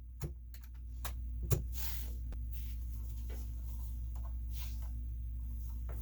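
Keys of an SK61 mechanical keyboard being pressed: a few sparse, irregular clicks rather than continuous typing, over a steady low hum.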